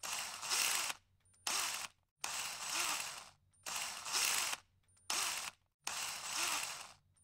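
Mechanical ratcheting rattle used as an intro sound effect, in about eight short bursts, each under a second, with brief silences between them.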